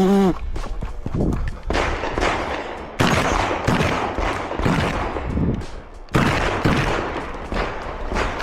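Shotgun fired in a rapid string of shots, irregularly spaced about half a second to a second apart, each with a short echoing tail. The two loudest shots come about 3 and 6 seconds in.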